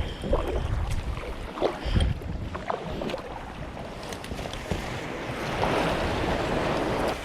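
Wind buffeting the microphone over the wash of sea waves, with a few small knocks and clicks.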